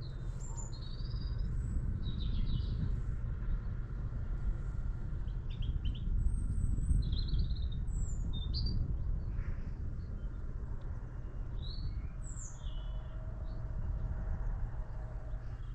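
Small songbirds chirping and calling, short scattered notes and trills one after another, over a steady low rumble.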